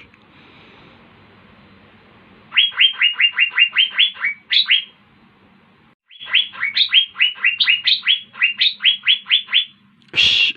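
Asian fairy-bluebird (cucak biru) singing: two runs of quick, clear notes, each note sliding sharply down in pitch, about five a second. The first run lasts about two seconds and the second about three and a half, with a short pause between them. A loud harsh sound cuts in at the very end.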